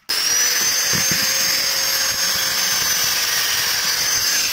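Handheld electric angle grinder switched on and running at full speed: a loud, steady high whine that rises briefly as the disc spins up and then holds even.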